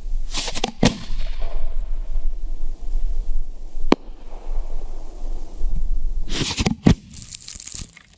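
A 4-inch firework display shell launching from its mortar tube with a bang near the start, then bursting high overhead several seconds later with a loud report.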